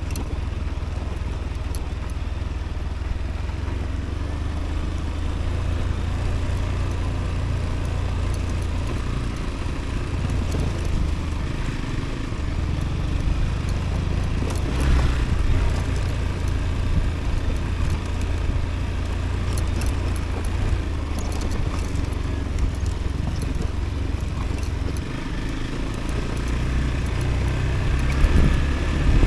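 Motorcycle engine running while riding, with a steady low wind rumble on the microphone.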